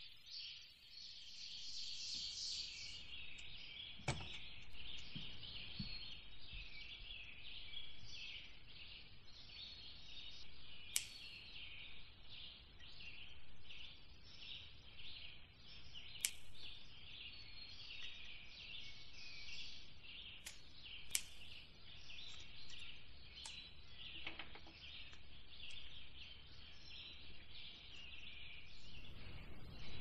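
A dense chorus of small birds chirping rapidly and without pause, with a few sharp clicks scattered through it.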